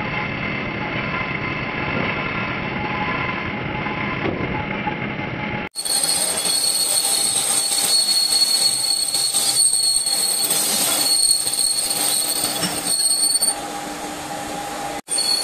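Metal lathe running and turning a motor pulley, a steady mechanical whine with a few held high tones from the spindle, gears and cutting tool. The sound changes abruptly about six seconds in and again near the end.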